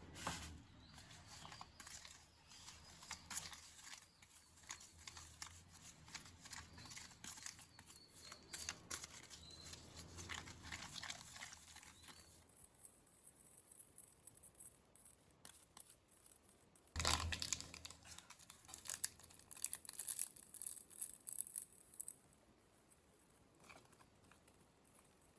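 Rustling, crinkling and tearing with many small clicks as things are handled. It is quieter for a few seconds past the middle, then a louder spell of rustling and knocks runs for about five seconds before it fades.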